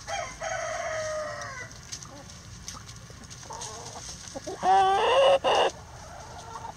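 Chickens calling: a long, slightly falling call at the start, then a loud rooster crow about four and a half seconds in, with hens clucking.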